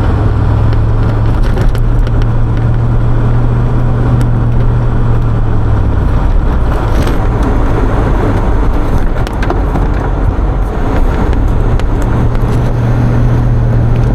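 Pickup truck engine running as it drives through snow: a steady low drone that drops away about six seconds in and comes back near the end, over a continuous rumble.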